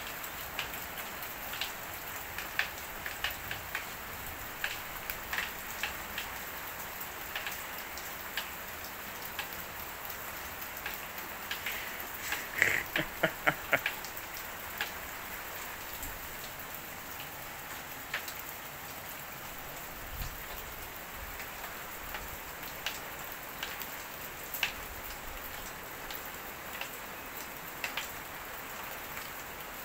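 Steady rain falling on the garden and porch, with scattered sharp taps of drops or stray hailstones and a quick run of louder taps about 13 seconds in.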